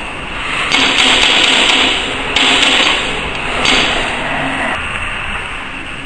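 Metal parts of a ZP9 rotary tablet press scraping and rubbing as the machine is worked by hand while its punches and dies are fitted. There are three noisy stretches, the first two over a second long, over a steady background hiss.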